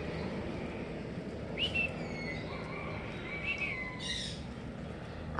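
Bird calls: a few high whistled chirps and held notes about a second and a half in and again around three and a half seconds, ending with a short raspy note, over a steady low background hum.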